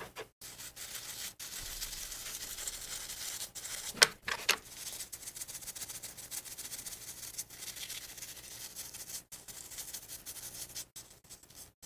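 Steady scratchy rubbing, like hand sanding or scrubbing a surface, with two sharp clicks about four seconds in.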